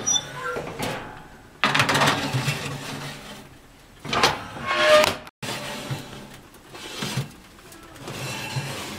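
A metal sheet pan scraping and clanking as it is slid onto the rack of a wood cookstove oven. There are two rough scraping spells, the second with a brief metallic ring, and it cuts off suddenly about five seconds in.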